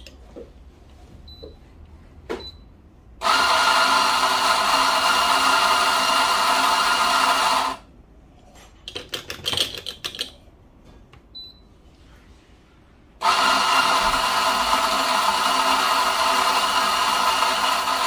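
Electric weight-dosing coffee grinder grinding espresso into a portafilter. The motor runs steadily for about four and a half seconds and stops. After a few light clicks and knocks, it starts again about thirteen seconds in.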